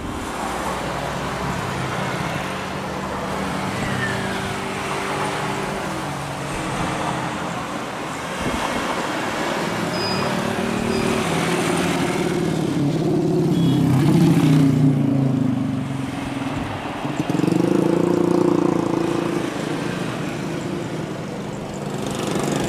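Jet engines of a Boeing 737-800 (BBJ2) running as the airliner taxis: a steady rumble and hum that grows louder about halfway through and again a few seconds later.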